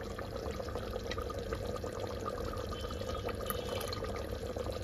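Chicken and yakhni gravy bubbling and sizzling in an open aluminium pressure cooker on the flame, a steady dense crackle of small pops, as the liquid cooks down in the frying-down (bhuna) stage.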